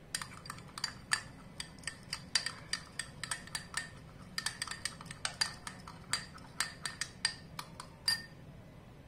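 Steel spoon clinking against a glass bowl while stirring thick curd: quick, irregular ringing clinks, a few a second, stopping shortly before the end.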